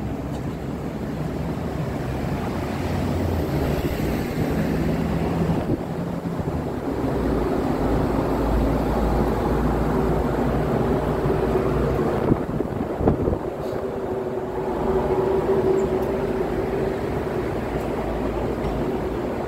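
Motor vehicle noise: engines running with a steady low rumble and hum, with a couple of sharp knocks about two-thirds of the way through.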